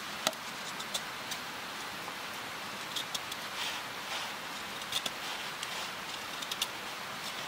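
Wood fire crackling in a small wood-burning stove: irregular pops and snaps over a steady hiss.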